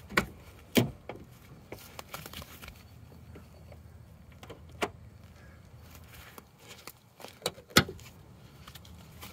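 Sharp clicks and knocks of a Holden VY Commodore's fuel filler door being shut and latched. There are two loud ones near the start, one near the middle, and two close together near the end.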